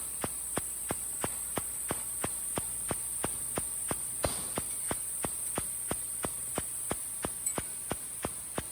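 TIG welding arc: a steady high hiss with sharp, regular ticks about three times a second.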